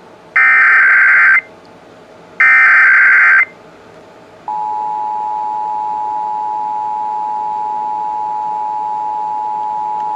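Emergency Alert System SAME header: the last two of three one-second buzzy digital data bursts, about a second apart. About four and a half seconds in, the EAS two-tone attention signal starts and holds steady. Together they open an EAS Required Monthly Test.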